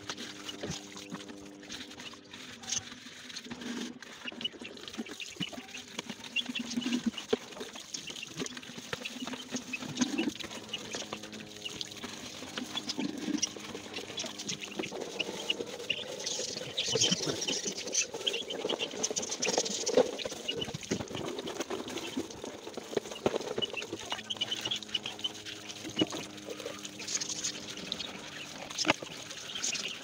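Water splashing and pouring as plastic poultry drinkers are rinsed and handled by hand, with plastic knocking and clattering. Farm birds call in the background near the start and again near the end.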